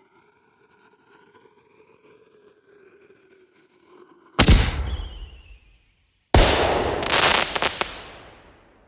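Weapon sound effect: a faint humming tone, then two loud blasts about two seconds apart. The first trails off with high, falling whining tones. The second crackles as it fades.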